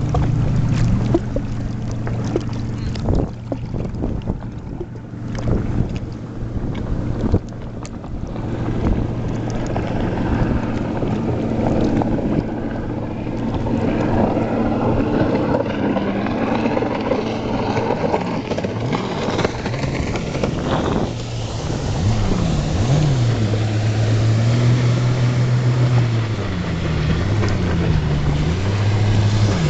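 Personal watercraft engine running through an aftermarket exhaust with a GPR waterbox and swapped midpipe. It idles with a steady low note, then is revved repeatedly in the second half, the pitch rising and falling with each blip of the throttle.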